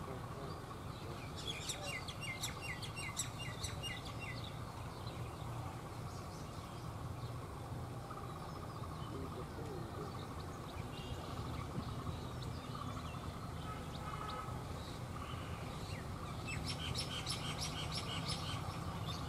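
Small birds chirping in quick runs of high notes, once about two seconds in and again near the end, over the steady low rumble of a diesel locomotive's engine as it approaches slowly.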